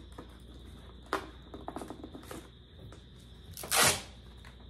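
Sand-coloured duct tape pulled off its roll in one loud, short rip near the end. Before it come a few light crackles and taps of the tape being pressed onto the cardboard.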